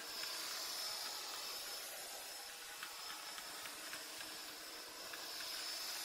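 ILIFE T20s robot vacuum-mop running as it drives across a tiled floor: a steady hiss from its suction fan with a faint high whine and a few light clicks near the middle.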